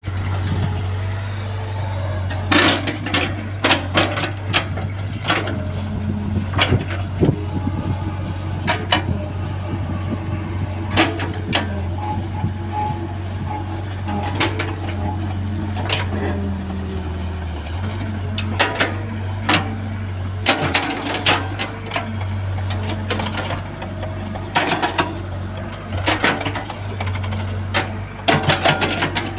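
Caterpillar E70B excavator's diesel engine running steadily as the machine digs in mud, with frequent sharp knocks and clanks from the working machine.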